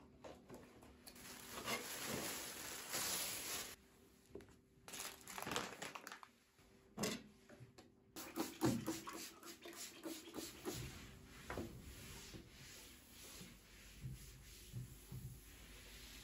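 Household handling sounds: a stretch of rustling near the start, then a series of light knocks and clicks as things are moved about, growing softer toward the end.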